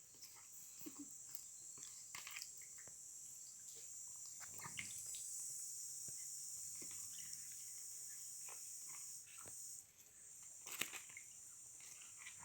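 Running water or a spray hissing steadily while a parrot is washed, with small splashes and clicks scattered through it. The flow cuts off briefly about ten seconds in, then resumes.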